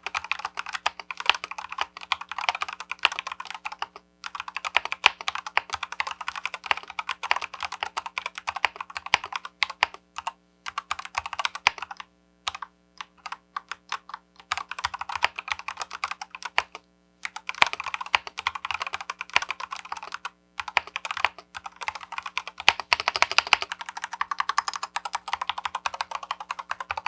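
Typing on a stock LTC Nimbleback NB831 mechanical keyboard, unmodded: fast runs of key clicks and clacks in bursts with short pauses between them.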